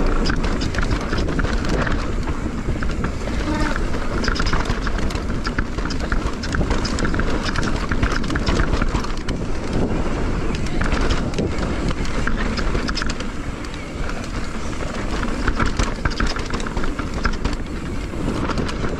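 Mountain bike riding fast down a dirt trail: steady wind noise on the microphone, the tyres running over dirt, and the bike rattling and clicking over bumps.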